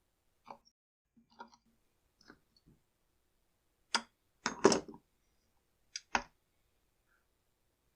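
Scattered light clicks and knocks of hand tools and small engine parts being handled on a workbench while perished fuel lines are pulled from a brush cutter, with a brief louder clatter about halfway through and two sharp clicks just after.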